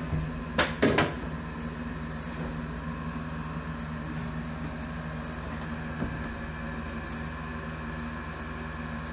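Steady low machine hum, like a fan or air conditioner running, with two sharp knocks close together just under a second in.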